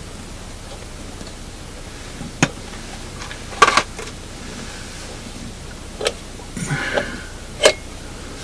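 An oil lamp being lit and its glass chimney fitted: a few separate sharp clicks and knocks, one of them doubled, with a short scraping rustle a little before the last click, over a steady low hiss.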